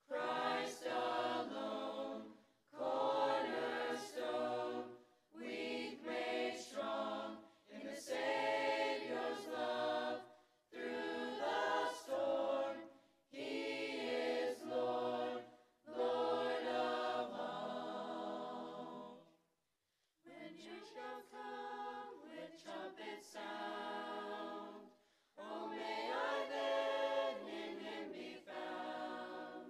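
Youth chorus of mixed boys' and girls' voices singing in phrases with brief breaks between them, and a full stop of about a second about two-thirds of the way through.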